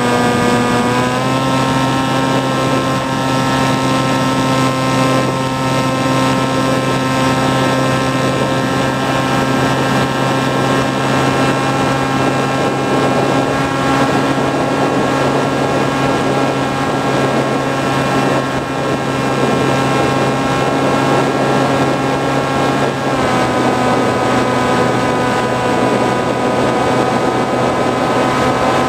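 A model flying wing's motor and propeller, heard from the camera on board in flight: a steady droning whine over rushing air. Its pitch rises a little about a second in and eases down again near the end.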